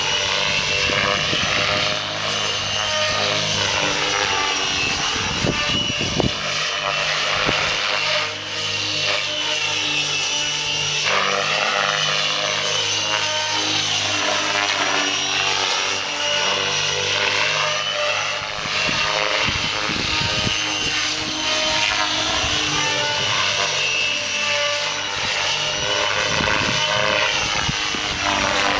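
JR Vibe E-8 electric model helicopter flying aerobatics: the rotor blades whooshing and the brushless motor whining, the pitch sweeping up and down again and again as the helicopter flips and swoops past.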